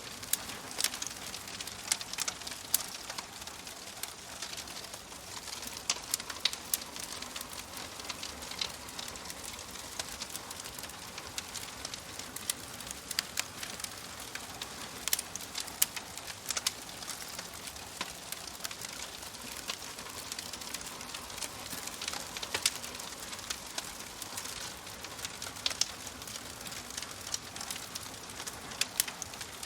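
Fire crackling: a steady hiss with frequent, irregular sharp pops.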